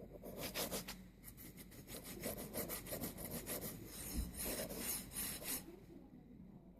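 LM8UU linear ball bearing sliding on its 8 mm rod, making a gritty, rasping scrape in a quick run of strokes that stops about five and a half seconds in. Whether the rasp is normal or a sign of a damaged bearing is left open.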